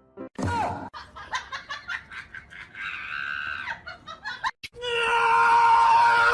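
A voice laughing in short bursts, then a long, loud scream held on one pitch from about five seconds in.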